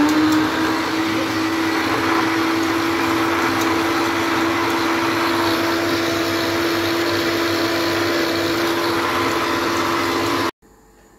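Electric hand blender with a chopper-bowl attachment running steadily, pureeing chopped banana with a little water. The motor hum stays even, then cuts off suddenly near the end.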